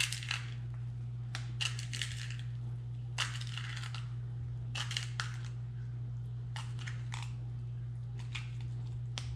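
Light, scattered clicks of M&M candies rattling in a small plastic cup as they are picked out a few at a time, in little clusters every second or so, over a steady low hum.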